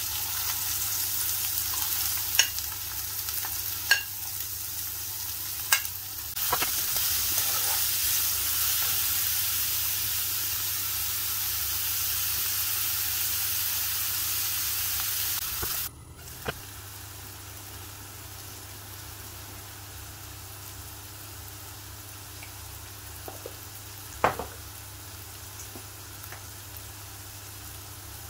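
Sliced onions and diced carrots sizzling loudly as they are tipped into hot oil in a wok-shaped pan, with a few sharp clinks of a metal spoon against the pan. About halfway through the sizzle drops suddenly to a quieter, steady frying.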